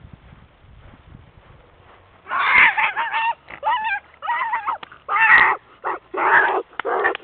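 A girl's voice making dog-like animal noises: a run of short, loud yelps and wavering howls, starting about two seconds in after a quiet stretch.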